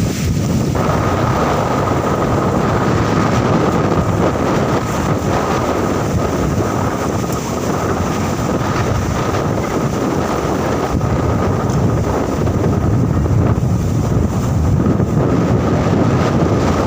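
Strong wind blowing and buffeting the microphone in a steady, loud rumble, with a faint steady whistle above it.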